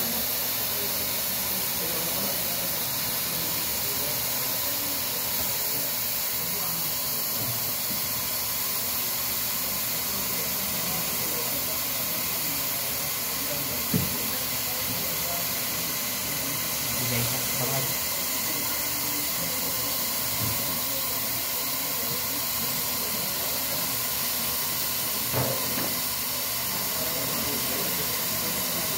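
A steady, even hiss throughout, with a short knock about halfway through and another near the end.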